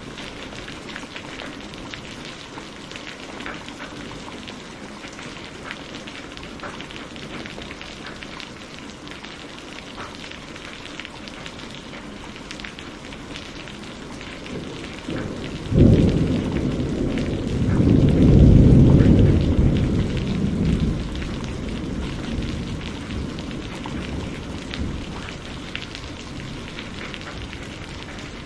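Steady rain falling, with a thunderclap a little past halfway: a sharp crack, then a deep rumble that swells for a few seconds and fades away.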